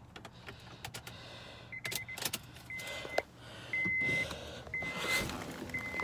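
Car's warning chime beeping at one steady high pitch, about once a second, each beep about half a second long, starting about two seconds in. Several sharp clicks sound before and between the beeps.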